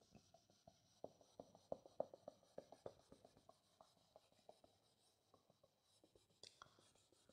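Faint rubbing of a whiteboard eraser wiped across a whiteboard: a run of short, soft strokes from about one to three seconds in, then near silence.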